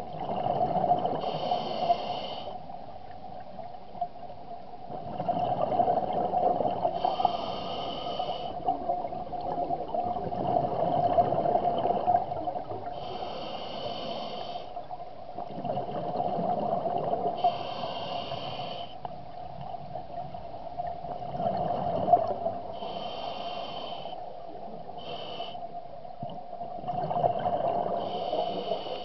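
Scuba diver breathing through a regulator underwater, heard by the camera. A breath comes about every five to six seconds, each with a hiss and a swell of gurgling exhaled bubbles.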